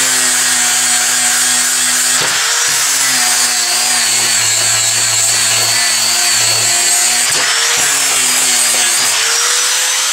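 A 4-inch angle grinder with a flap wheel running and grinding a steel flat bar to bright metal. The motor's whine drops in pitch while the wheel is pressed into the steel and picks up again when it is eased off, about two seconds in and again near seven and a half seconds.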